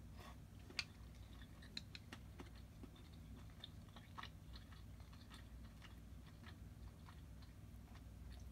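Faint close-up chewing with small crunchy clicks: a mouthful of crispy fried horse mackerel (aji) in sweet-vinegar glaze being chewed. One sharper click comes about a second in.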